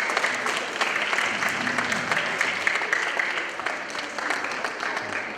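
Audience of schoolchildren and staff applauding, many hands clapping at once, thinning out toward the end.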